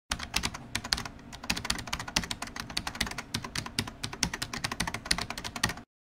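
Rapid, irregular clicking, about ten sharp clicks a second, that stops suddenly near the end.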